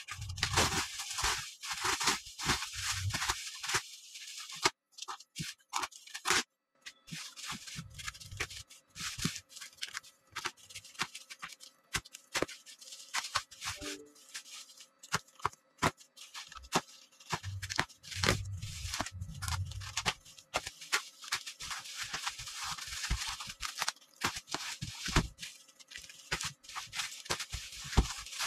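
Bubble wrap crinkling and crackling, with packing tape being cut and torn as a bubble-wrapped package is opened: a busy run of sharp clicks and short rustles, with a few dull thumps of the package being handled.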